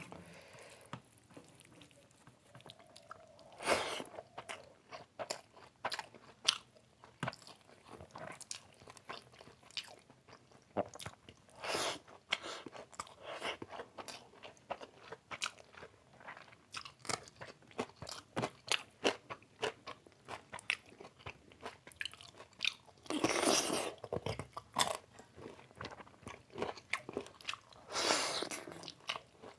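A person chewing and biting chicken biryani and chicken curry close to the microphone, with a run of short wet mouth clicks and crunches. There are two longer, louder stretches of eating noise, about 23 and 28 seconds in.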